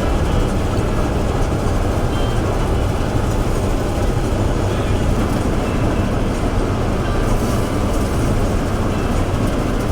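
Combine harvester running steadily at work: a constant, loud machinery drone with a low hum underneath.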